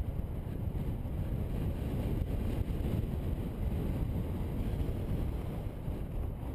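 Steady low wind rumble buffeting the microphone of a camera on a moving bicycle, with no distinct events.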